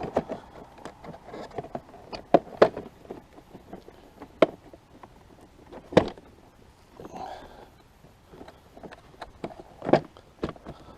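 Scattered knocks and clicks of a plastic body panel being handled and pressed against a motorcycle's rear bodywork while it is being fitted, with a few sharper taps among them.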